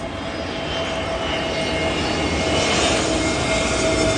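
Airplane flying over, its engine noise growing steadily louder: a broad rumble with a steady whine on top.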